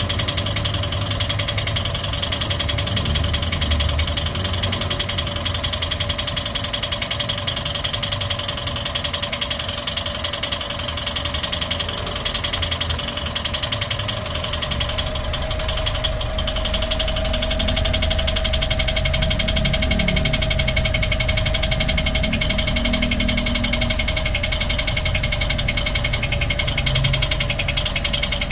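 Toyota 1NR-FE four-cylinder engine running steadily at idle, with a continuous whine that shifts slightly higher about halfway through. This is the engine noise being troubleshot, which the mechanic links to the timing chain and hydraulic lifters.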